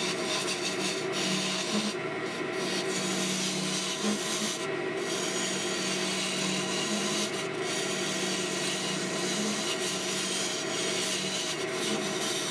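Wood lathe running while a hand-held turning tool cuts a maple spindle: a steady hiss of shavings coming off the wood over the lathe's even hum.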